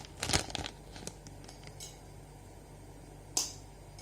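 Handling of a squishy's packaging: a short cluster of rustles and taps in the first second, a few faint ticks after, and one sharp click about three and a half seconds in.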